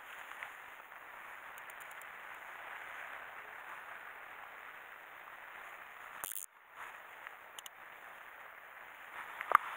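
Steady outdoor hiss of wind and sea by a seawall, cutting out briefly about six seconds in, with one sharp click near the end.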